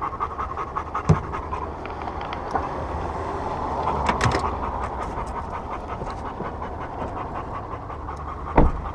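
A dog panting fast and steadily, close up, with two sharp knocks: one about a second in and a louder one near the end.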